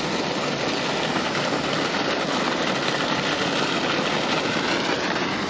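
Steady rushing of flowing river water, an even noise with no rhythm or pitch.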